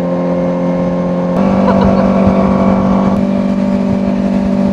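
A fishing boat's motor running under way, a steady drone that steps up in pitch and gets louder about a second and a half in.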